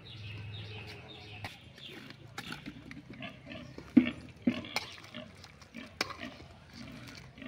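Metal spatula stirring and scraping chicken curry in a metal pan, knocking against the pan a few times; the loudest knocks come about four and four and a half seconds in, with another about six seconds in.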